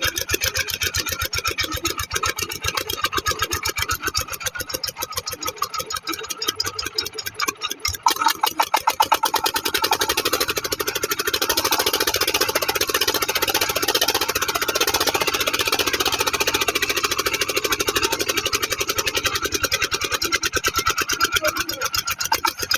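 Petter diesel engine running with a fast, even knocking beat, getting louder about eight seconds in.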